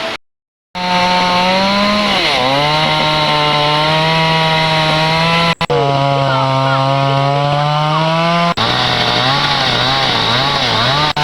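Two-stroke chainsaw running at high revs while cutting up a fallen tree. Its pitch sags as it bogs under load about two seconds in, then wavers up and down near the end as the cut goes on.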